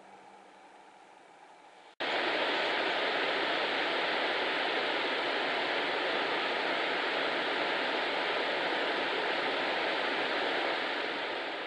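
Steady rush of river rapids, water churning over rocks, cutting in abruptly about two seconds in after a faint quiet stretch.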